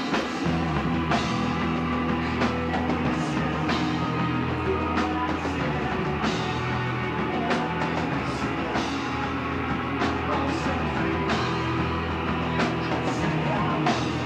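A loud rock band playing live: distorted electric guitars and bass over a drum kit, with frequent cymbal crashes.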